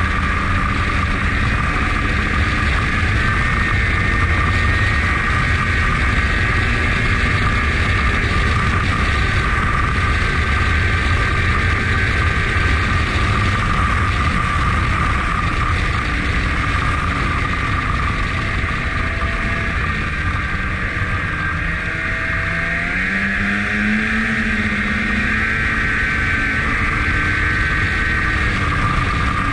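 Snowmobile running steadily along the trail, heard from the rider's seat: a continuous engine drone with a steady high whine over it. About two-thirds of the way through, the engine note sags and climbs again as the throttle eases and comes back on.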